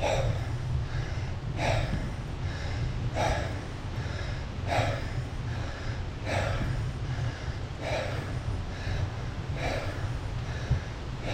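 Cyclist's heavy, hoarse breathing while climbing a 15–20% gradient on a mountain bike, a hard gasping breath about every second and a half, steady and rhythmic under the effort. Under it runs a steady low rumble.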